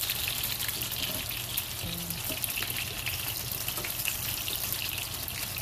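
Ilocos longganisa sausages sizzling in a frying pan with many small crackles, in the last stage of frying as they brown and char slightly. Metal tongs turn them, over a steady low hum.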